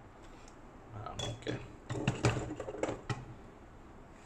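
Lehui Kriss Vector V2 gel blaster being set down on a stainless-steel kitchen scale: a run of sharp plastic clacks and knocks against the metal platform from about one to three seconds in.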